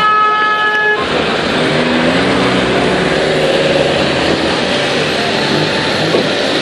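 A car horn, held, stops abruptly about a second in. Then comes steady traffic noise of cars passing on a wet road, with tyre hiss.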